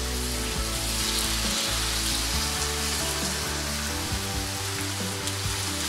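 Marinated chicken pieces sizzling as they fry in hot oil in a non-stick pan, a steady frying hiss.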